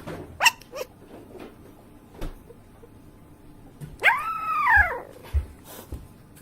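Dog whimpering: a brief high squeak near the start, then one loud whine about four seconds in that rises and falls in pitch over about a second.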